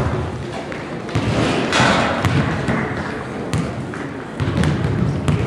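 A basketball bouncing with several thuds on a gym floor, echoing in the large hall, over a low murmur of voices.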